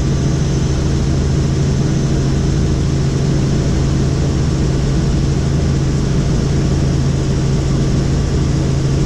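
Helicopter in steady flight: a loud, even drone of rotor and engine, with a strong low hum that does not change.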